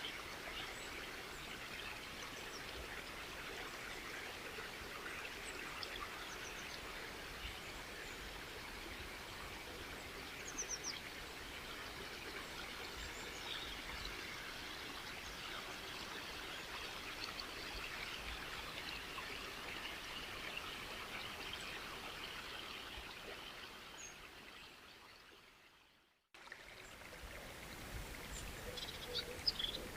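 Steady rush of flowing water, like a small stream, with occasional faint bird chirps. About 24 s in it fades out to a brief moment of silence, then starts again at once.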